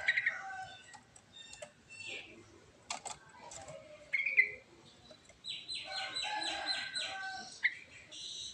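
Yellow-vented bulbul (trucuk) calling: scattered short chirps, then a rapid run of repeated notes in the second half.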